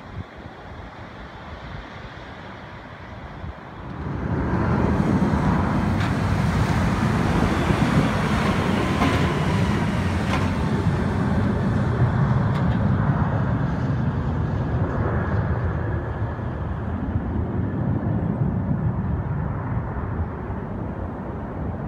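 Mitsubishi automated people mover train running past on its elevated guideway: a dense, steady rumble that comes in suddenly about four seconds in and slowly eases off toward the end.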